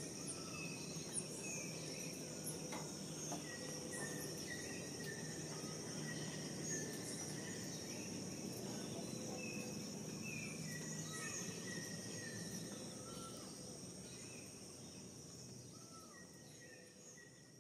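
Insects trilling steadily at a high pitch, with short bird calls repeating over them and a low steady rumble beneath. The sound fades out near the end.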